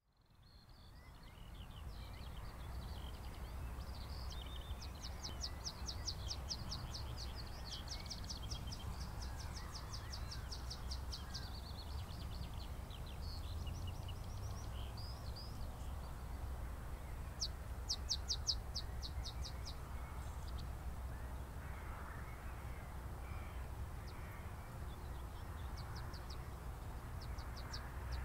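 Birds calling in the open air, with several runs of rapid, high-pitched repeated notes and scattered chirps between them. Under the birds is a steady low rumble of wind on the microphone.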